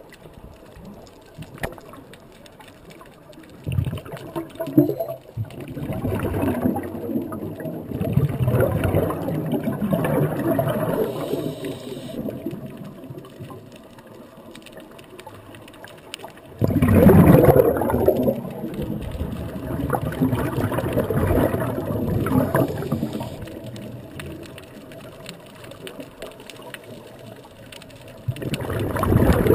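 Scuba regulator exhaust bubbles gurgling and bubbling out in bursts every few seconds with each exhaled breath, the loudest burst about halfway through, with quieter breathing pauses between.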